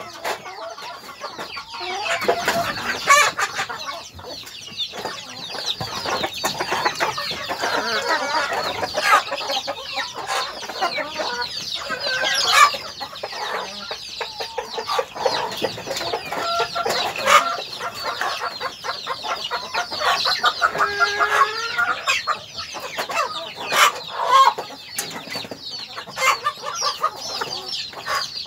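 A flock of hens clucking and calling without a break, many overlapping calls, with sharp clicks now and then.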